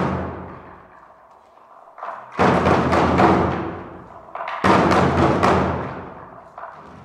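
Large drums struck in heavy accented strokes, each ringing out and fading in a reverberant hall. The drumming dies away at the start, then after a short lull comes a flurry of strikes, and near the middle a single hard accent rings out and fades.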